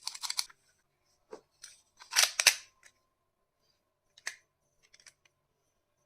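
Handling noises from unboxing a plastic toy pistol: short scraping, rustling bursts, the loudest about two seconds in, then a few light clicks.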